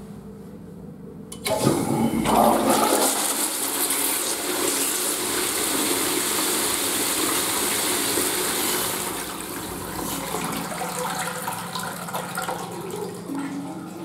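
A Japanese squat toilet's lever flush valve is flushed. Water rushes in suddenly about a second and a half in and runs strongly for several seconds, then eases to a quieter wash toward the end as the valve shuts off.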